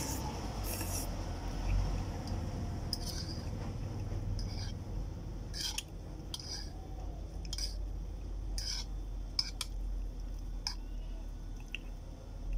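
Eating instant curry noodles with a fork from a bowl: about a dozen short, sharp clinks, scrapes and slurps, spaced irregularly, as the fork works in the bowl and noodles are slurped up. A low steady hum runs underneath.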